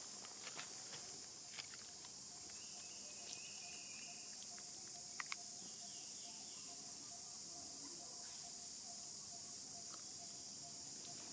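Steady high-pitched insect chorus, a continuous buzzing hiss, with two sharp ticks about five seconds in.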